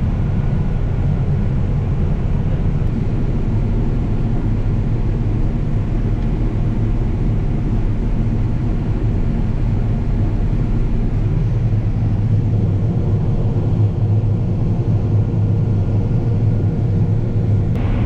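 Combine harvester's engine running steadily, a low, even drone.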